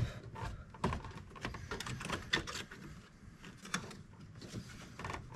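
Irregular light clicks and knocks of hands fitting an aftermarket air filter onto its intake pipe in the engine bay.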